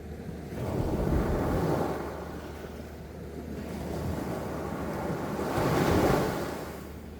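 Sea waves surging in twice, each a rush of surf that swells and fades, the second louder and peaking about six seconds in, with wind on the microphone.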